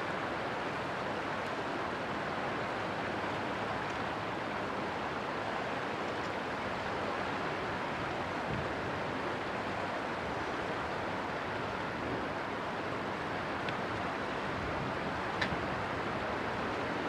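Steady rushing noise of wind and flowing river water, even throughout, with a small click near the end.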